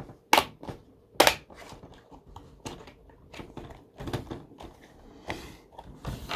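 Plastic snapping and clicking as a Toshiba Satellite L775 laptop's screen bezel is pressed on by hand: two sharp snaps about a third of a second and a second and a quarter in, then lighter clicks and handling noise.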